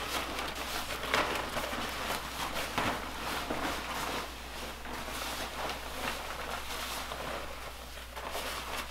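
Thin plastic rain poncho rustling and crinkling in irregular bursts as it is shaken out and pulled on over the head.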